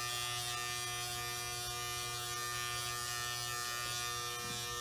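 Electric hair clippers running with a steady buzz as they are worked over a man's head, cutting his hair.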